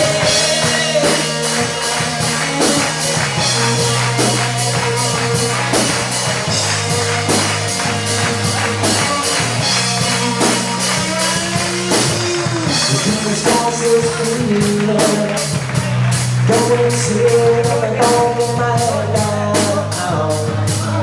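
Live rock band playing loud: a drum kit keeps a fast, even cymbal beat about four strokes a second under bass and electric guitar, with a vocalist singing.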